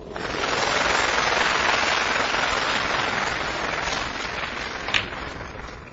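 Audience applauding, starting suddenly and fading towards the end, with a single sharp click of snooker balls about five seconds in.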